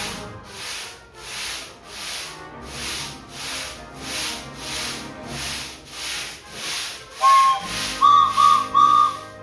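Foley steamboat-engine chugging: a rhythmic rubbing, hissing puff about three times every two seconds, with a quiet orchestral score underneath. Near the end, a whistle sounds several short toots over the chugging.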